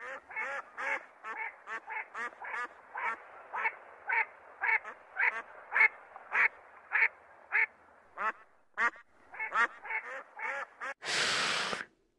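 Mandarin ducks calling: a run of short calls, each rising in pitch, about two a second, with a brief pause about two-thirds of the way through. Near the end comes a loud burst of hiss-like noise lasting about a second.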